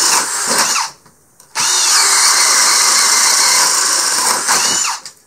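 20-volt brushless cordless drills, a DeWalt Atomic and a Hart, boring speed bits through a pine 2x4. The motors whine as the bits cut through the wood without stalling. The drilling stops for about half a second, about a second in, then runs again for about three seconds, and the motor winds down each time the trigger is released.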